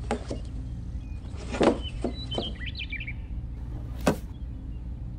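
Stiff paper deck being handled and set into place, giving a few short taps and crackles, the sharpest about four seconds in. A bird chirps briefly about halfway through, over a steady low hum.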